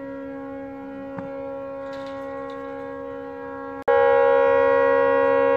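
A tugboat's fog horn stuck on, sounding one continuous, unwavering note: a malfunction that keeps it blaring non-stop. About four seconds in, the note becomes much louder, heard from closer by.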